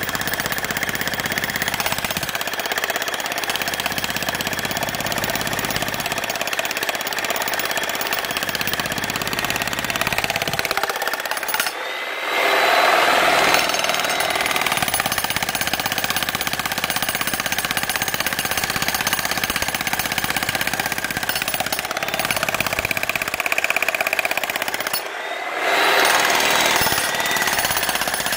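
Electric 120-volt jackhammer hammering continuously into a concrete footing, breaking it up around an old steel post. It falters briefly twice, about twelve seconds in and again near twenty-five seconds, then comes back louder.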